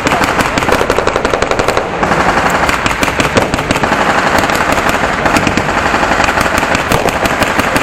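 Dense gunfire from reenactors firing blank rounds: rapid machine-gun bursts and single shots overlapping, with hardly a gap between them.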